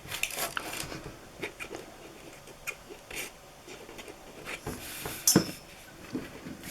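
Card and paper being handled and pressed on a craft table while glue is applied: soft scattered rustles, scrapes and light taps, with one sharper click about five seconds in.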